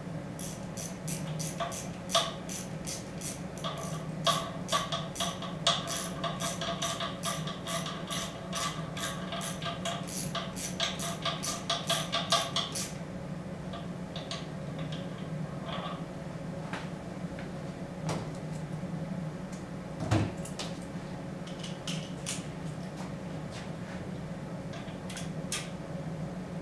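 Hand socket ratchet clicking as it turns bolts on an engine cylinder head: a rapid, even run of clicks at about three a second that stops about halfway through, then only occasional single clicks and one heavier knock, over a steady low hum.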